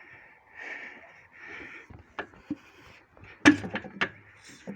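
IZh Planeta-5 two-stroke engine being turned over: three puffs of air hiss out on the compression strokes, from joints the owner says leak everywhere. Then come a few sharp metallic clicks and knocks, the loudest about three and a half seconds in.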